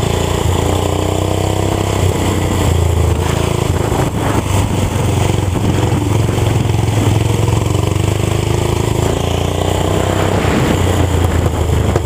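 Racing lawn tractor's small gas engine running hard at high revs, its pitch climbing as it accelerates, first near the start and again in the later part.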